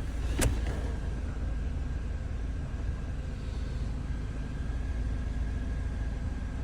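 Ford Mondeo Mk4 2.3 four-cylinder petrol engine idling steadily, with one sharp click about half a second in, as its electrical load from the headlights and heater is turned down.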